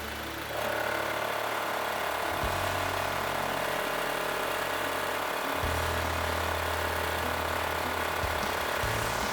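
12V portable air compressor starting up about half a second in and then running steadily, its motor and piston giving an even mechanical clatter with a constant pitch while it pumps up a truck tire.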